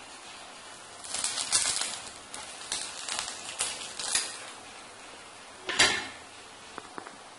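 A metal spatula scraping against a hot iron tawa around the edge of a cooking makki ki roti, in a run of short scrapes with a louder scrape near the end.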